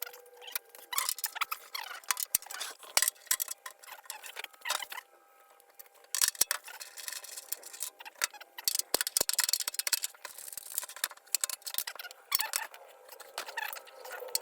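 Rapid, irregular clicks, taps and light metallic rattles of hand work on a metal lathe stand, such as removing its shelf and bolts, with a short lull about five seconds in.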